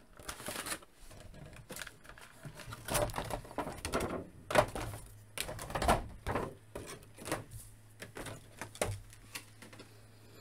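Clear plastic figure tray and cardboard box being handled: irregular clicks, taps and crinkles of the hard plastic as the tray is slid out of the box and set down.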